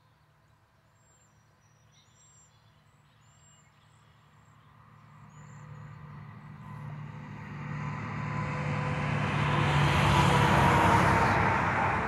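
A semi-truck (tractor-trailer) approaches and passes on the highway. Its diesel engine hum and tyre noise swell gradually from faint to loud, peak about ten seconds in, and begin to fade as it goes by.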